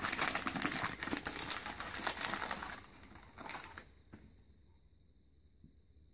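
Crumpled paper wrapping crinkling and rustling as hands pull it off a small plastic deli cup. It is heavy for about three seconds, gives one more short rustle, and stops about four seconds in.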